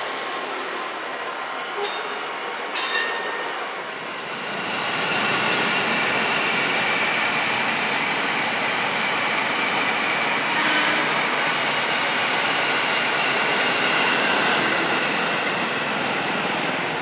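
Electric commuter train running past, a steady rail noise with high, thin squealing tones that swells about four to five seconds in and holds. Two sharp clicks come before it.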